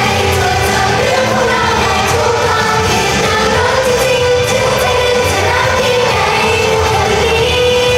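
Pop song performed live on stage, a sung vocal melody over full band music played loud through the sound system.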